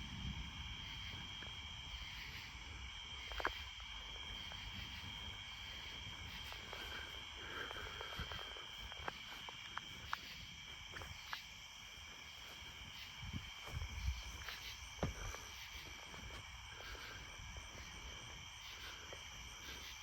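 Faint, steady chorus of crickets and other insects, with a few scattered sharp clicks and a brief low rumble about two-thirds of the way through.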